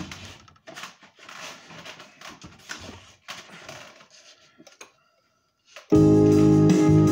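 Quiet, irregular rustling and knocking for a few seconds. Then, about six seconds in, instrumental music starts abruptly and loudly.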